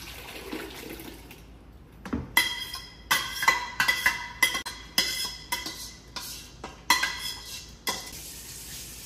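Cheese sauce pouring from a stainless steel pot into a plastic tub of macaroni, then a spoon scraping and knocking inside the pot about a dozen times to get the last of the sauce out. Each knock makes the pot ring.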